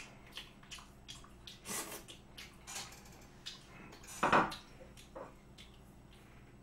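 Chopsticks clicking and tapping against ceramic dishes during a meal, small clicks throughout with one louder knock about four seconds in.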